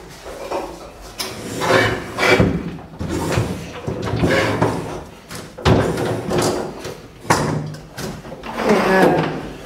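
A tall refrigerator being shifted into place against a kitchen counter: scraping and bumping of the cabinet, with two sharp knocks about five and a half and seven seconds in.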